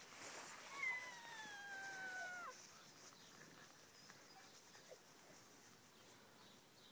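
Alaskan Malamute puppy giving one long whine, slightly falling in pitch and lasting under two seconds, about a second in.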